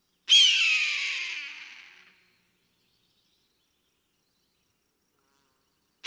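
A single eagle scream: a sharp start, the pitch sliding downward, then fading out over about two seconds.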